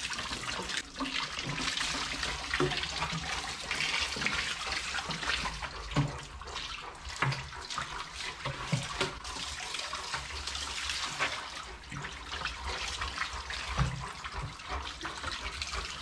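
Water pouring steadily from a plastic watering can over a big dog's thick coat and splashing onto a tiled shower floor, with a few soft knocks along the way.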